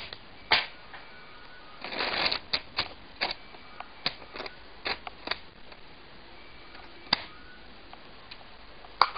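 Plastic Lego Technic parts of a rubber-band-powered toy rifle clicking and clacking irregularly as its mechanism is handled, with a short rustle about two seconds in.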